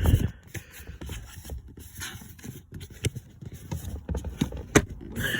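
Plastic clips and filter-housing parts being handled and pushed into place under a car dashboard: scattered knocks, scrapes and clicks, with one sharp click near the end.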